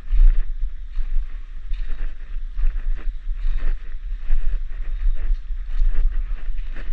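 Walking through forest undergrowth: irregular footsteps and rustling of brush, over a low rumble of wind and handling on the action camera's microphone. A faint steady high cicada drone sits underneath.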